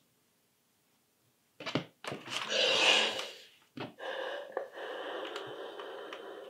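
Steam iron picked up and set down on the fabric with a knock about a second and a half in, then hissing as it presses the turned-up hem of a knit t-shirt, with a second knock about halfway through and a steadier hiss as it moves along the fold.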